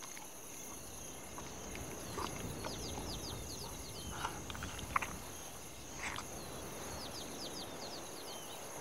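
Rainforest ambience: a steady high insect drone with many short, repeated falling chirps and a few brief sharp animal calls, the loudest about five seconds in.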